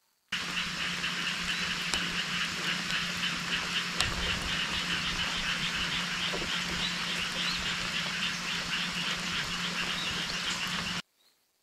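Steady rain with a chorus of frogs calling in a rapid, even pulse; it starts and stops abruptly.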